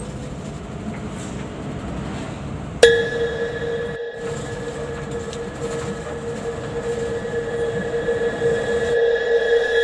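Road and engine noise inside a moving bus, then about three seconds in a horn starts sounding one long steady note, held for about seven seconds with a short break a second after it starts.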